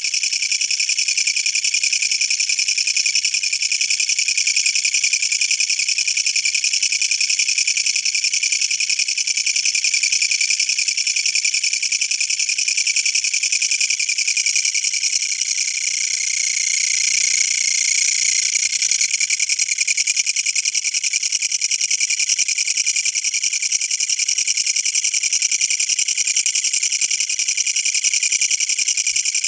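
Kutsuwamushi (Japanese katydid, Mecopoda niponensis) stridulating at close range: a loud, steady, high-pitched buzz of rapid pulses, easing slightly for a moment about halfway through.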